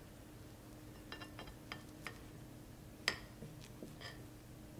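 Metal knife and fork clinking against a ceramic plate while cutting through a soft pancake: a few light clinks from about a second in, the loudest about three seconds in.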